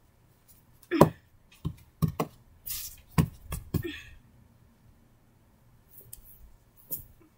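Toys being handled and set down on a rug: a quick series of knocks and bumps with a brief rustle in the middle, then one more knock near the end.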